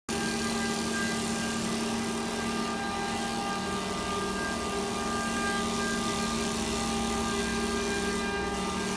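CNC wood lathe running, a steady machine hum with constant whining tones over a hiss.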